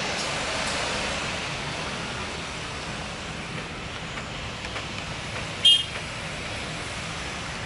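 Wide-body jet airliner rolling along the runway after landing, heard as a steady rush of engine and tyre noise that eases a little after the first second. Near the three-quarter mark a brief, shrill high-pitched sound is the loudest thing.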